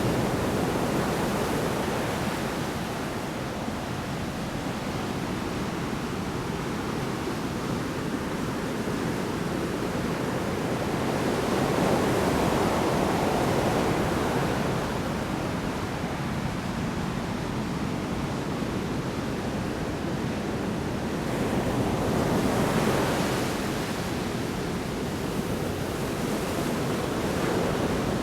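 Large storm waves breaking and washing on a shore: a continuous rushing roar that swells as a wave crashes, about 12 seconds in and again about 22 seconds in.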